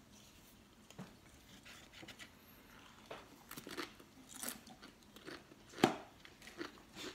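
Crunching and chewing of a potato chip: scattered crisp crunches, sparse at first and coming thicker after about three seconds, the loudest about six seconds in.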